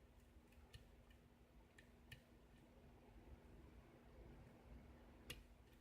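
Faint, irregular clicks of a lock pick working the pin stacks of a Metro lock under light tension, during single-pin picking. The clicks are sparse, the clearest about five seconds in.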